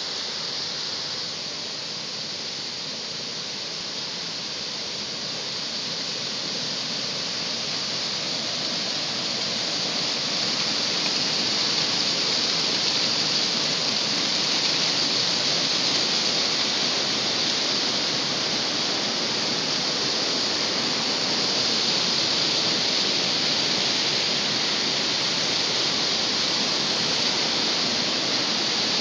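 River water rushing over a weir and down white-water rapids: a steady rushing noise that grows louder over the first ten seconds or so, then holds.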